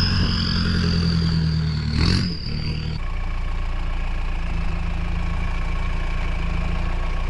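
Mahindra Roxor's diesel engine running at low speed off-road. For the first three seconds a steady high whine rides over it, with a single clunk about two seconds in. After a cut, the engine runs steadily at low revs as the vehicle crawls over a dirt mound.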